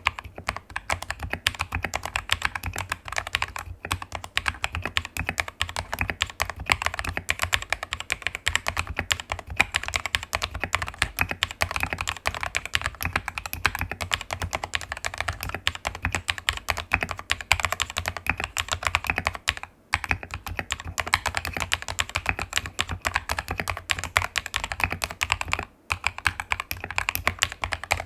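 Continuous fast typing on a Royal Kludge RKG68 mechanical keyboard fitted with KTT Kang White linear switches, PBT XDA keycaps, case foam and a tape mod: a dense stream of key clacks, broken by a few brief pauses.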